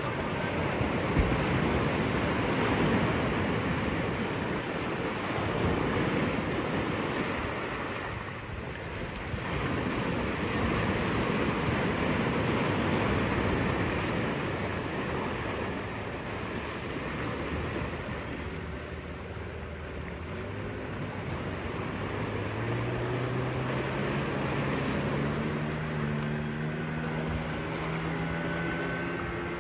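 A steady rushing noise, with an engine whose pitch climbs steadily over the last several seconds.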